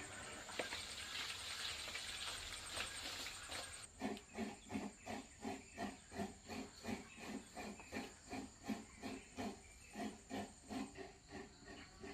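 A steady high insect drone over a soft hiss. From about four seconds in, an animal gives a run of low, evenly repeated calls, about three a second, which stop near the end.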